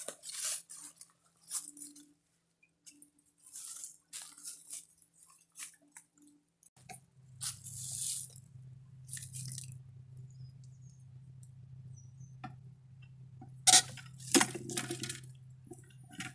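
Rustling and clicking of a geocache container and its contents being handled, with a sharp loud click near the end. A low steady hum comes in about halfway through.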